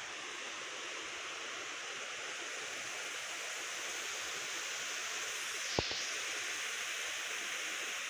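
A small waterfall running thinly over rock, with only a little water coming down: a steady, even splashing rush. A single brief low knock sounds about six seconds in.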